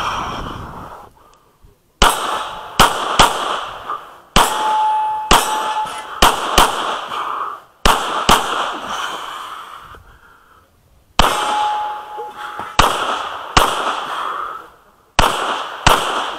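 A string of about fifteen handgun shots, mostly in quick pairs, with a pause of about three seconds in the middle. Twice a held metallic ring follows a pair of shots, like a hit steel popper target.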